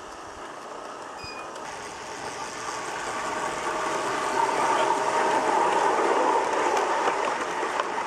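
Garden-scale model electric train running on its track, its motor and wheels making a steady rolling hum. It grows louder as the locomotive comes close, peaking about halfway through, then stays loud as the freight wagons roll past.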